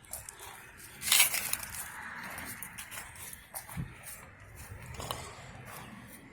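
Handling of new bolts and small parts: a rustle about a second in, then scattered light metal clinks and clicks, with a soft thump partway through.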